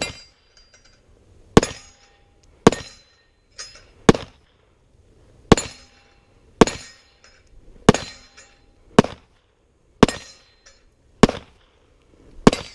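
Pistol shots fired one at a time at a steel plate rack, about eleven shots a second or so apart. Some shots are followed by the short ring of a steel plate being hit.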